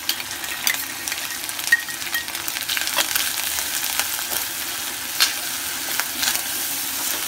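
Grated fresh coconut sizzling in melted jaggery in a metal pan as it is stirred with a metal spoon, the spoon clicking and scraping against the pan every second or so. This is the coconut-jaggery filling for ukadiche modak being roasted over medium heat.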